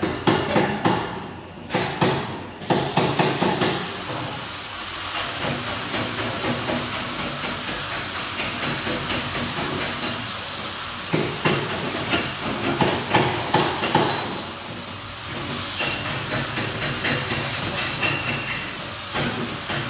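Steady crackling hiss of stick (shielded metal arc) welding, with sharp metallic knocks and clicks scattered through it, louder and more frequent in the first few seconds and again about halfway through.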